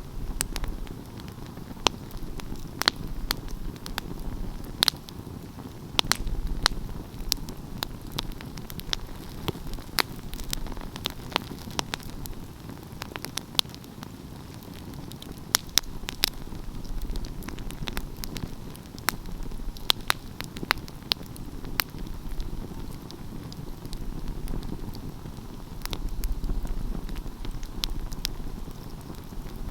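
Wood fire burning, with a steady low rumble of the flames and frequent irregular sharp crackles and pops.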